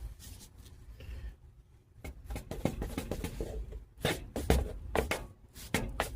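Metal brake parts being worked with a screwdriver: a quiet start, then from about two seconds in a busy run of sharp metallic clicks, taps and short scrapes, loudest in the last couple of seconds.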